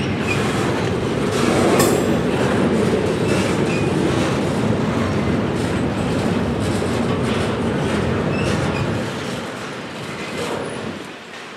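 Double-stack intermodal container train rolling past: steel wheels clattering over the rails, with a few short faint wheel squeals. It grows quieter from about nine seconds in.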